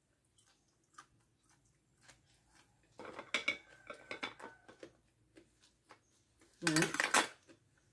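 A metal spoon clinking and scraping against a small ceramic dish of dipping salt, with scattered small clicks, then a brief voiced sound near the end.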